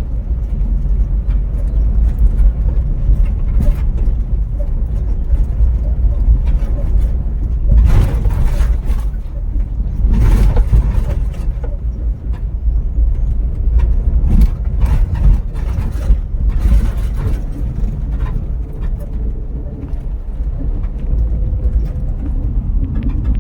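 Vehicle driving along a rural road: a steady low rumble, with several louder rushes and bumps along the way.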